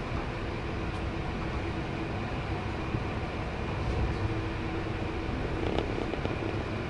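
Passenger train running, heard from inside the carriage: a steady rumble of wheels on track with a low hum throughout and a few light clicks and rattles near the end.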